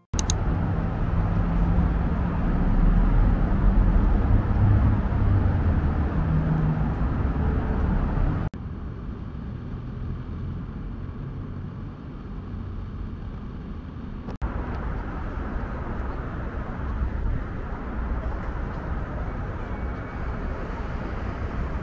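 Outdoor city background with steady traffic noise and a heavy low rumble. It drops abruptly about eight seconds in and rises again about fourteen seconds in.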